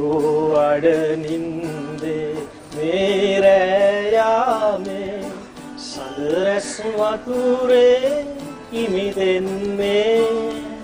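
A man singing a slow melody in long held notes, accompanied by an acoustic guitar.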